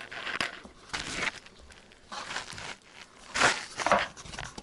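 Hands working pelmeni dough on a floured cloth-covered table, rolling and pinching off pieces: soft scuffing rustles in a handful of short bursts, the loudest two near the end.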